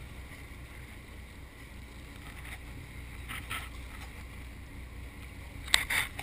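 Sportfishing boat's engine running with a steady low rumble. Two short sharp noises come about three and a half seconds in, then a louder cluster of sharp noises near the end.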